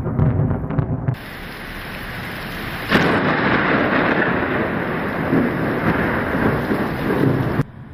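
Thunderstorm: low thunder rumbling. About three seconds in, a sudden loud rush of rain and thunder begins, holds steady for several seconds, then cuts off abruptly near the end.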